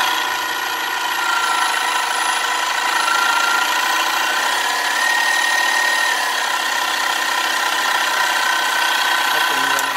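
Dremel Moto-Saw switched on and running with a steady whine; about five seconds in the pitch rises as the speed dial is turned up, then drops back a second later. It is switched off near the end.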